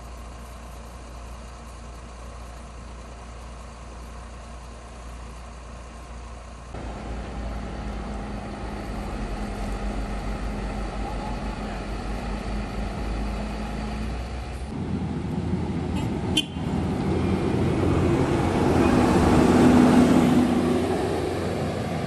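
Heavy vehicles' diesel engines running: a steady drone that grows louder in stages, swelling to its loudest near the end as a heavy vehicle comes close.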